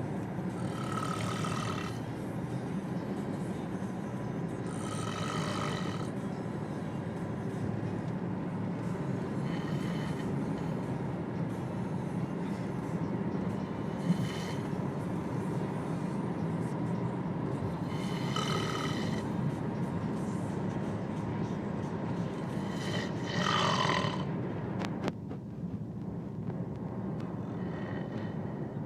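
A boy snoring deliberately as loud as he can, one rasping snore about every four to five seconds, over a steady low rumble.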